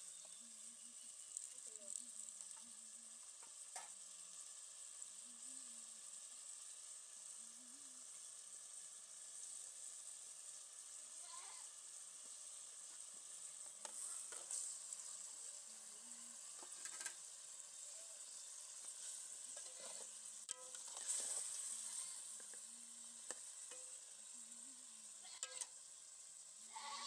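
Okra soup simmering faintly in a metal pot over a wood fire, a steady low hiss and sizzle. A metal ladle stirs it and knocks sharply against the pot a few times.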